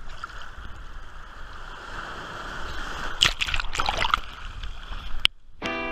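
Sea water sloshing against a camera held at the waterline, with a burst of splashes as a foamy wave washes over it about three seconds in. Guitar music starts right at the end.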